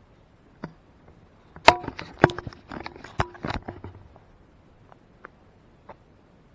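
A quick run of sharp knocks and clanks, a few of them with a brief ringing tone, bunched between about one and a half and four seconds in, followed by a few lighter clicks.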